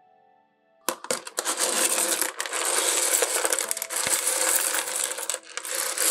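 Rough seam opal pieces clattering and clinking against one another as a hand stirs through a heaped pile of them. The clatter starts suddenly about a second in and runs on densely, with a brief lull near the end.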